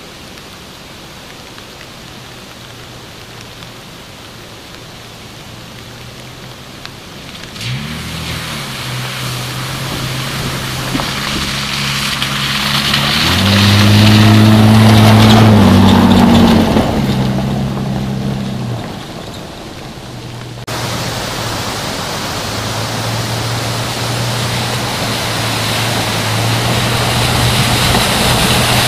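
SsangYong Musso's 3.2-litre six-cylinder engine approaching on a dirt track, rising in pitch as it accelerates, loudest as it passes close by, then fading. Then the engine running steadily as the SUV wades through a stream crossing, with tyres splashing through the water.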